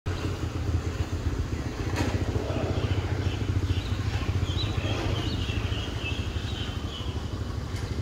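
A small motor engine, like a motorcycle's, running with a steady low rumble. Faint high chirps come in around the middle.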